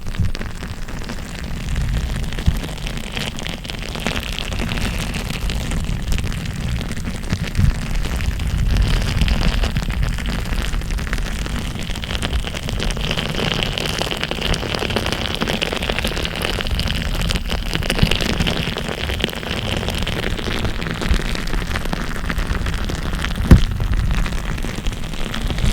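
Close-miked ASMR trigger sounds: continuous crackling and rustling handling noise over a low rumble, with a few sharper pops, one loud one near the end.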